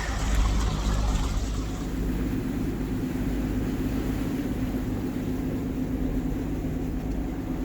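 A boat engine runs at a steady hum, with water rushing and splashing against the hull during the first couple of seconds.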